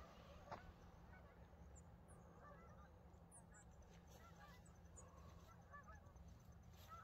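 Faint honking of geese at a distance, short calls coming in clusters every second or so, with a few brief high chirps from small birds.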